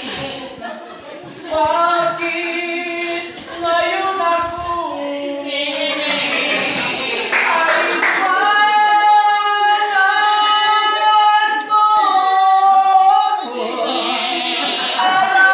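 A voice singing a song into a microphone, with little or no instrumental backing; the notes get longer and are held in the second half.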